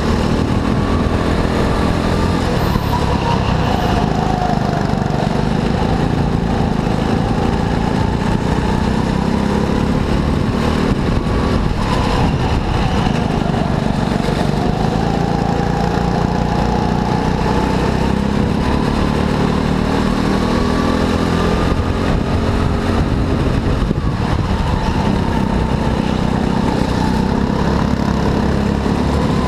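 Go-kart engine running hard under racing load, its pitch rising and falling every few seconds as it speeds up and slows.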